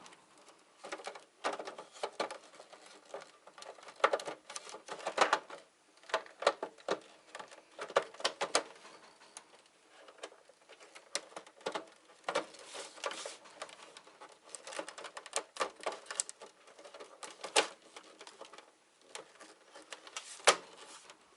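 Irregular clicks, taps and knocks of hard plastic UPS case parts and loose screws being handled and fitted back together.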